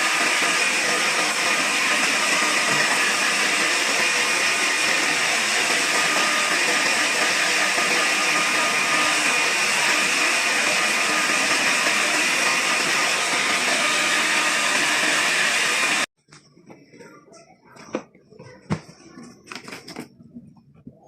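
Electric blower running steadily with a loud rushing hiss and a faint whine, cutting off abruptly about sixteen seconds in. After it stops there are soft clicks and handling sounds.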